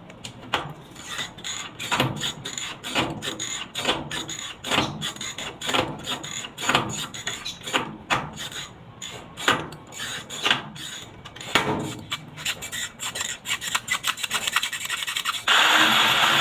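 Repeated rasping strokes of hand sanding or filing on a washing machine's body, two or three strokes a second, uneven in strength. About a second before the end, a loud steady rushing noise starts suddenly.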